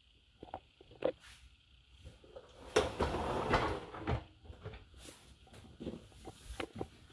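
Things being handled: a few light knocks and clicks, and a louder rattling, scraping stretch of about a second and a half near the middle.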